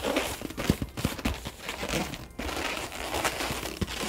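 Inflated latex modelling balloon being folded and handled: rubbery rubbing and crinkling of the balloon against the hands, with scattered small clicks and taps.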